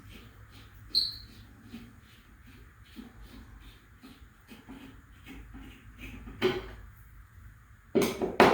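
Handling noises from removing a smoke alarm's mounting bracket: a short high ping about a second in, a single knock later on, and a louder clatter of knocks near the end.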